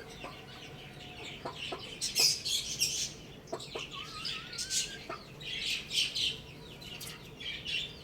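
Chickens clucking among dense, high-pitched chirping, with a wavering rising call about four seconds in and a few short clicks.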